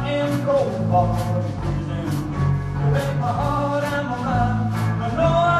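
Blues band playing an instrumental passage: drum kit with regular cymbal strokes, electric bass, electric guitar and a bending lead line from a harmonica played into a cupped microphone.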